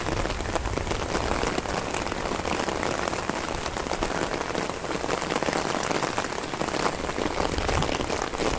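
Steady rain falling on garden plants and waterlogged ground: an even hiss made of many small drop ticks.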